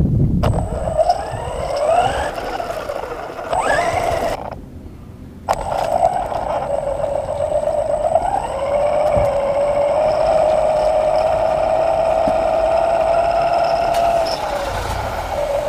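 Radio-controlled model truck's motor running at speed. Its pitch rises twice as it accelerates in the first few seconds, it cuts out for about a second, then it holds a steady pitch.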